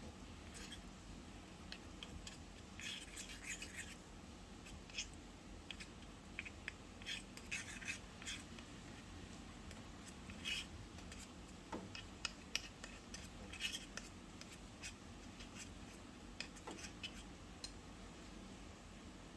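Small metal spoon scraping and lightly clinking against a small stainless-steel bowl while stirring thick melted chocolate: faint, irregular scrapes and taps that thin out in the last few seconds.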